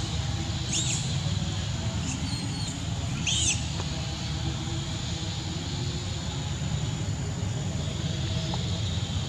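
Young macaques giving short high squeaks, one about a second in and a louder one about three and a half seconds in, over a steady low background rumble.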